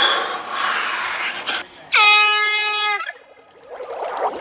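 A hand-held air horn gives one steady blast of about a second, about two seconds in, its pitch settling as it starts. Before it there is a loud rushing, hissing noise for the first second and a half.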